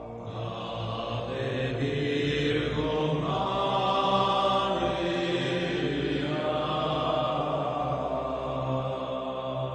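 Background music: a slow, chant-like drone of long held tones that shift to new notes every few seconds.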